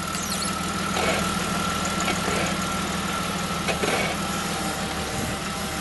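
Jeep Wrangler YJ's engine running steadily at low revs as the truck crawls slowly over a rut.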